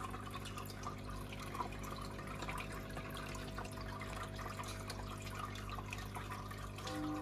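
Aquarium filter running: water trickling and splashing into the tank as a fine, steady crackle over a constant low electric hum from the pump.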